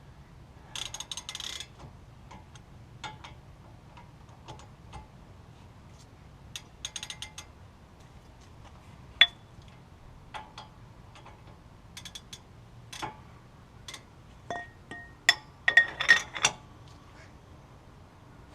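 Steel hand tools working on the hub bolts: short bursts of rapid ratchet-like clicking and scattered sharp metal clinks, the loudest of them ringing briefly about nine seconds in and near the end.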